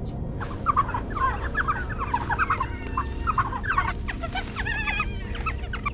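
A pack of African wild dogs twittering: many short, high-pitched, bird-like chirps overlapping in a busy chorus, starting about half a second in.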